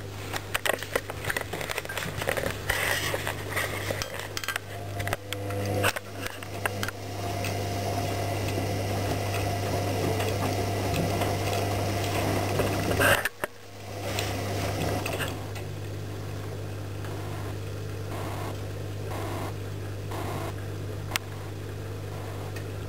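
AEG Lavamat front-loading washing machine in its main wash: a steady drum-motor hum as the drum turns the wet laundry. Rapid clicking and clattering fill the first several seconds. The sound drops out briefly about halfway through, then the drum runs on more evenly.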